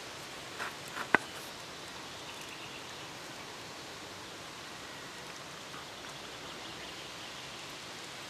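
Steady outdoor background hiss by a lake, with three short clicks about a second in, the last a sharp, loud snap.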